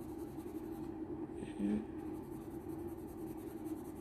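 Colored pencil scratching lightly across drawing paper as a dog's fur is shaded in, over a steady low hum. A brief louder sound comes about one and a half seconds in.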